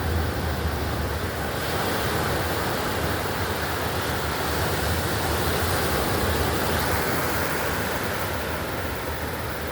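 Atlantic Ocean surf breaking and washing onto the beach, a steady rush, with wind rumbling on the phone's microphone.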